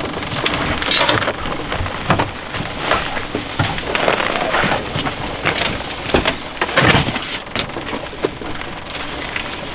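Irregular rustling, knocking and clattering of hunting gear and bags being handled in a boat.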